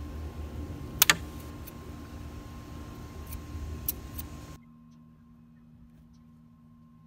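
Scissors snipping through the plastic nozzle of a caulk tube: two sharp snips about a second in, then a few lighter clicks. Steady low background noise runs under it and drops away abruptly at about four and a half seconds.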